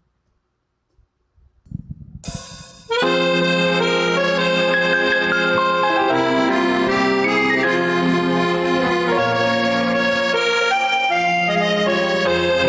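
Instrumental backing track of a Korean trot song starting up after a near-silent pause. A brief burst of noise comes about two seconds in, then the music begins about three seconds in and plays steadily, with a held, reedy lead melody over sustained chords.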